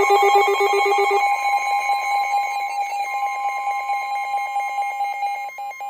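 Emergency alert attention signal: loud, steady electronic tones with a fast repeating beep pattern over them, which breaks into slower separate beeps near the end.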